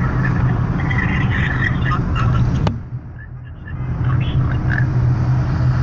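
Road and wind noise inside a moving car with a window open, over a steady low engine hum. About halfway through, a click is followed by the noise dropping away for about a second before it comes back.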